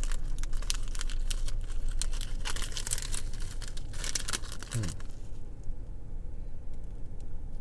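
A crinkly plastic biscuit wrapper crackling and rustling as fingers work the biscuits out of the pack, for about five seconds, then falling mostly quiet.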